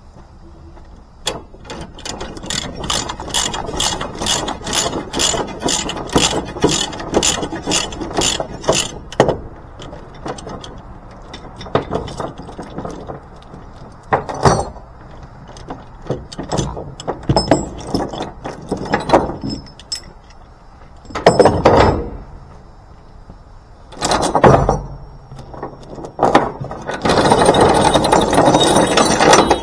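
Ratchet tie-downs being worked while releasing a load: for several seconds the ratchet clicks steadily, about three clicks a second. Then come several separate louder rattling scrapes, and near the end a long rasping stretch.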